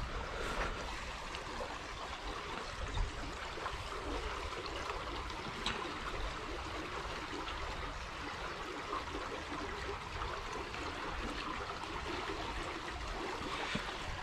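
Steady rush of river water pouring out through a small weir's gates and running over rocks.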